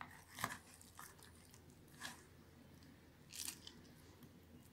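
Wet, crumbly soap squeezed and crushed in the hands, crunching three times about a second and a half apart, with faint crackles in between.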